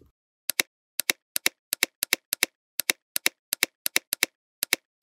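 Typing on a keyboard: about a dozen sharp keystroke clicks at an uneven pace, each one a quick double click, with dead silence between them.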